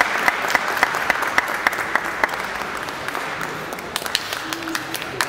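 Audience applauding in a sports hall, with one clapper close by keeping a steady beat of about three claps a second for the first two seconds. The claps then turn scattered and the applause slowly dies down.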